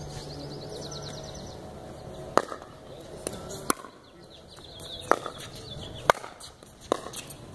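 Pickleball rally: paddles striking the plastic pickleball, about five sharp pops roughly a second apart, starting about two seconds in.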